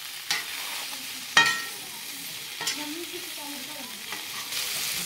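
Boiled potato pieces sizzling in oil in a metal kadhai while a metal ladle stirs them, knocking against the pan three times; the second knock is the loudest and rings briefly.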